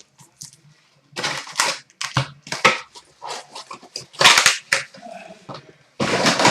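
Trading-card pack wrappers being torn open and crinkled as hockey cards are handled: irregular crackling and rustling with sharp snaps.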